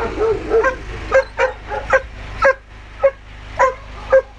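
Hound barking repeatedly: a few whining yelps at the start, then about ten short, sharp barks roughly two a second.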